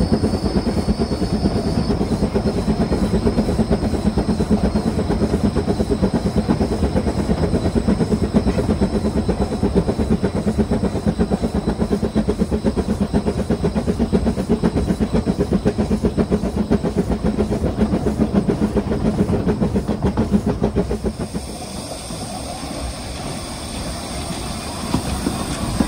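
Narrow-gauge steam locomotive hauling its train, heard from on board: a loud, fast, regular clatter of running gear and wheels on rail. It drops away about three-quarters of the way through as the train slows into the station.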